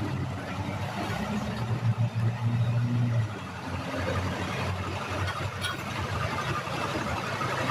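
A motor vehicle's engine running at idle, its low hum growing louder for a second or two and then dropping away about three seconds in.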